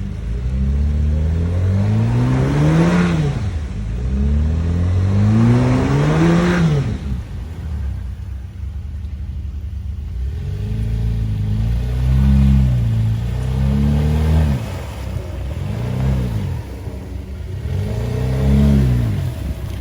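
A Jeep's engine revving hard as it drives through mud holes off-road. There are two long climbs in revs in the first seven seconds, each with a rush of noise near its peak, then a series of shorter revs rising and dropping from about ten seconds on.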